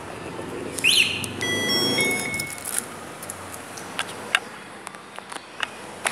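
Volta electric bicycle's keyless alarm unit answering its remote: a short electronic chirp about a second in, then about a second of steady beeping as the bike switches on. A few light clicks follow.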